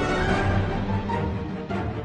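Background music: a theme-like piece with held notes over a steady low beat.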